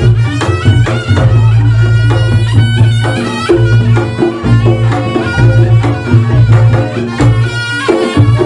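Reog Ponorogo ensemble music: fast kendang drumming under a reedy slompret shawm melody, with deep sustained low tones that break off and return every second or two.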